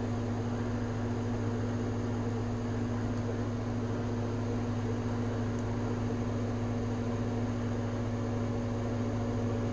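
Steady low hum with an even hiss underneath: constant background noise of a room or recording setup, unchanging throughout.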